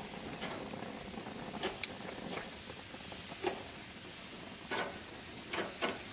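Shrimp and chicken sizzling on a hot grill in a steady hiss, with about eight sharp clicks and taps of cooking utensils against the grill.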